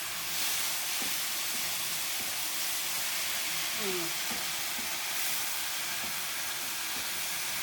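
Okra frying in a pan over high heat, a steady sizzle as its slime cooks off.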